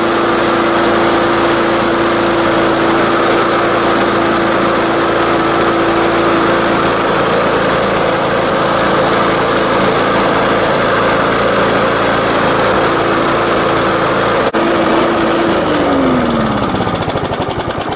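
Briggs & Stratton 3.75 HP single-cylinder lawn mower engine running steadily and smoothly on straight paint thinner. About fifteen seconds in it is shut off, and its pitch falls as it winds down.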